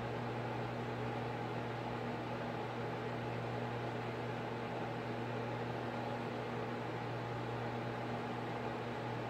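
Steady low electrical hum with an even hiss, unchanging, like a fan or appliance running.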